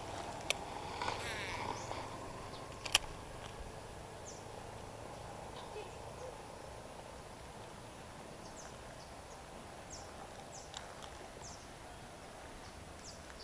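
Baitcasting reel in use for a cast: a light click, a brief whir as line pays off the spool, and a sharp click about three seconds in. After that, quiet outdoor background with scattered short high chirps.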